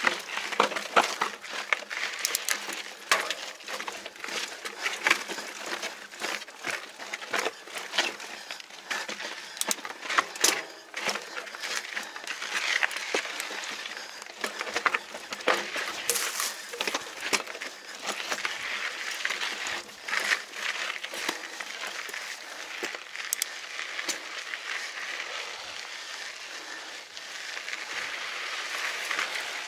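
Mountain bike riding over rough rock and grit: the tyres crunch along with frequent irregular clicks and rattles from the bike, over a steady hiss of rolling and wind noise.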